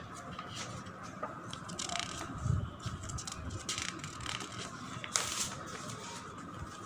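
Paper rustling and crinkling as fingers press and shift on a notebook page, in a few short scattered bursts over a faint steady high hum.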